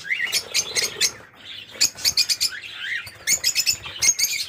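African lovebirds chattering: bursts of shrill, rapid chirps with short rising calls, pausing briefly about a second and a half in.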